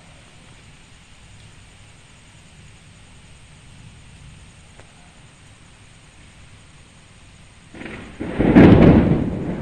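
Thunder breaks in about eight seconds in, a sudden loud rumbling clap over a faint steady hiss.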